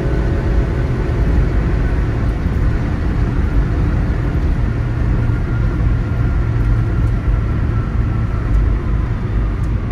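Steady low rumble of a car's tyres and engine at highway speed, heard from inside the cabin.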